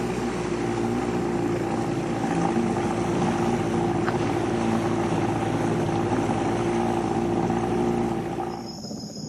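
A motor running steadily: a constant drone with a couple of held tones that cuts off abruptly near the end.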